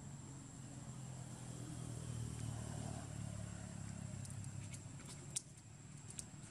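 Low engine rumble of a passing motor vehicle, growing louder for about two seconds and then fading away. A sharp click comes about five seconds in.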